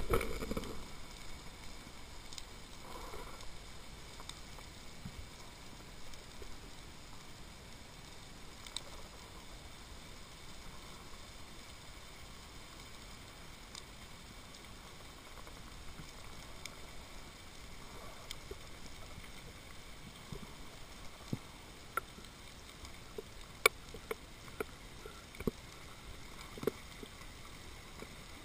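Underwater ambience picked up by a submerged camera: a steady muffled hiss with a loud rush at the very start that fades within a second, and scattered sharp clicks, most of them in the second half.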